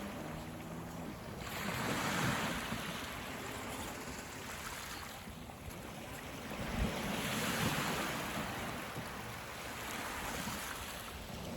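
Sea waves washing up the beach, swelling twice in long surges of hiss, with wind on the microphone.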